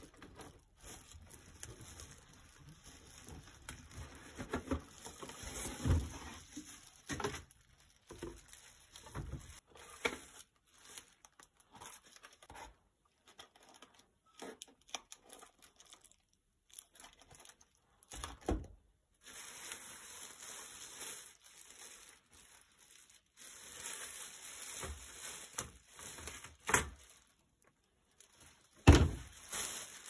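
Unpacking noise: plastic wrap crinkling and a cardboard box rustling as an espresso machine is handled and lifted out, with several dull thumps, the loudest near the end.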